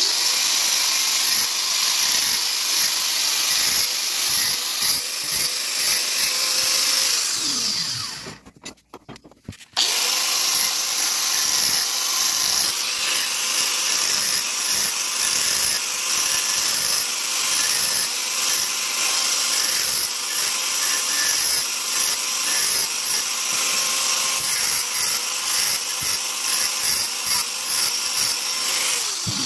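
Electric angle grinder grinding into the metal of a seized starter motor, throwing sparks. It runs steadily, is switched off and spins down about 7.5 seconds in, starts again about 10 seconds in, and spins down once more at the end.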